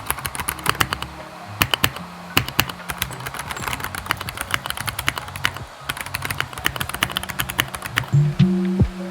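Typing on a Redragon mechanical keyboard fitted with marble-style keycaps: a quick, irregular stream of key clicks, over background music that swells near the end.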